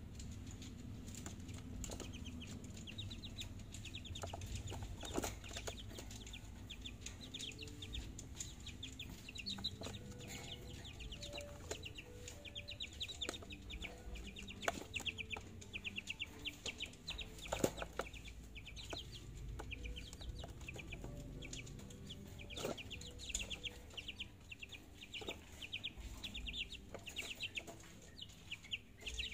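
Month-old chicks calling in a wire cage: quick runs of high chirps keep repeating, with some short lower clucking notes and now and then a sharp knock.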